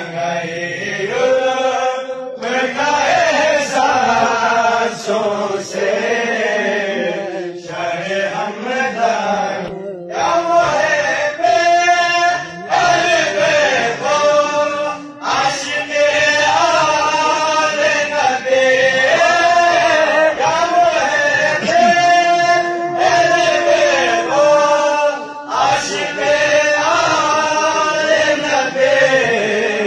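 Male voices singing a devotional kalam, a chant-like melody sung in long phrases with short breaks between them.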